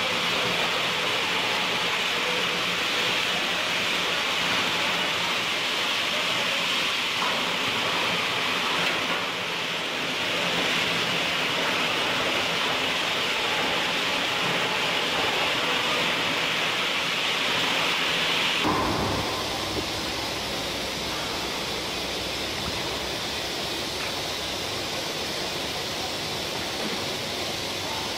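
Steady dense din of brick-factory machinery, a hiss-like roar with no distinct knocks or strokes. About two-thirds of the way through it changes abruptly to a duller, lower rumble.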